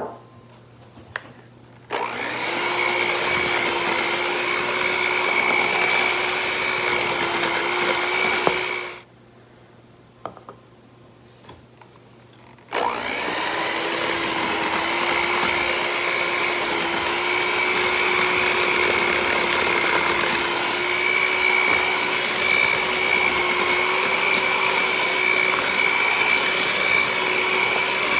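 Electric hand mixer running, its beaters whirring through thick cake batter as flour is mixed in. It runs for about seven seconds, stops for about four with a few small knocks, then starts again and runs steadily on.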